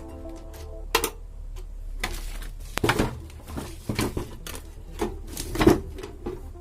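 Clicks and knocks of small hard parts and tools being handled, with several sharp knocks about a second apart and the loudest near the end, over a low steady hum.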